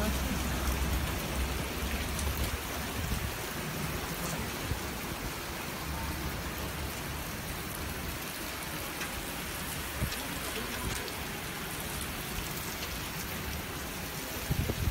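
Heavy rain pouring steadily onto a flooded road, a constant hiss of rain striking the floodwater.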